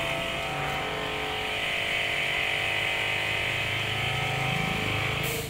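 Belt-driven air compressor and its electric motor running steadily, a fixed hum with a hiss above it, cutting off suddenly near the end.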